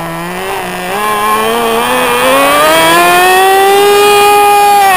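Small SH .07 two-stroke nitro glow engine with a tuned pipe, converted from an RC car engine, on a model plane held in the hand. It runs at a steady lower pitch, is throttled up from about a second in, and holds a steady, high-pitched, louder full-throttle whine from about three seconds in, as it is run up for launch.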